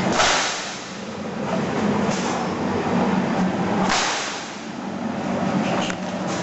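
CNC plasma cutter cutting stainless steel sheet: a steady loud hiss over a low hum, with louder hissing surges near the start and about four seconds in.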